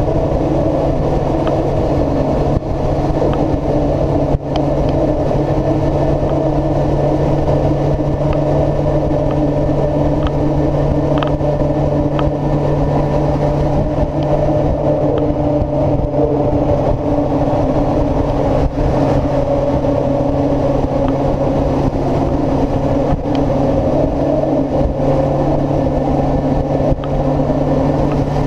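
Kawasaki ZZR600's inline-four engine running steadily at high revs at top speed, with wind rushing over the microphone.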